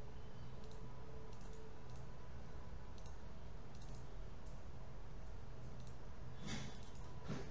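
Computer mouse clicking now and then over a steady low room hum, with two louder clicks close together near the end.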